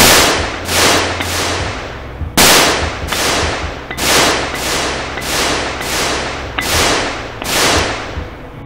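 A palm slapping down hard on the mouth of a cloth-wrapped glass bottle, again and again, in the bottle-bottom 'pop' trick meant to knock the bottom out. About a dozen sharp cracks come at uneven intervals, the loudest at the start and about two and a half seconds in.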